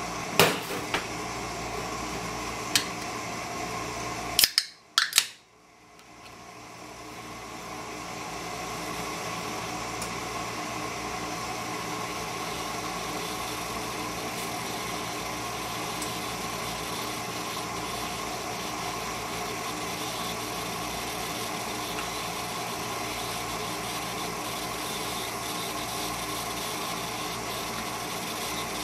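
A few knocks and clicks as a can is handled at the open refrigerator, then two loud thumps about four and a half seconds in as the refrigerator door is shut. After that, a steady low background hum while the pressure cooker sits sealed.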